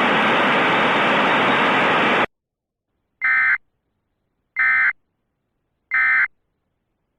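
Radio static hiss that cuts off abruptly about two seconds in, followed by three identical short buzzy data bursts about 1.3 seconds apart. These are the Emergency Alert System's SAME end-of-message (NNNN) codes, marking the end of the tornado warning broadcast.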